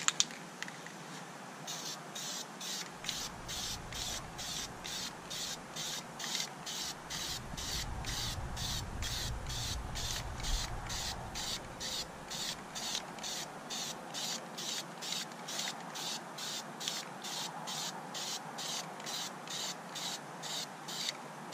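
Krylon Camouflage Series spray paint can hissing in rapid short bursts, about two to three a second, laying down a light base coat of tan paint.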